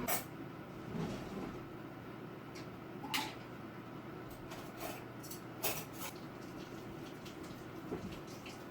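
A few scattered sharp knocks and clicks over a low steady hum.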